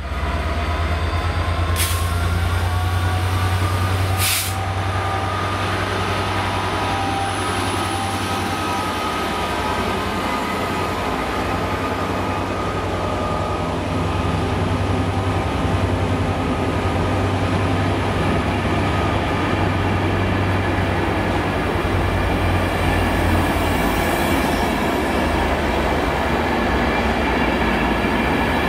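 Transport for Wales passenger train running in along the platform and passing close by. There is a steady low rumble, with a whine rising in pitch over the first few seconds and two sharp clicks, one about two seconds in and one about four seconds in.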